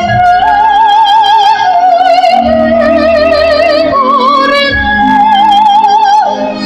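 Soprano singing an operatic piece through a sound-check PA system, over an instrumental accompaniment. She holds long high notes with a wide vibrato and moves from note to note every second or two.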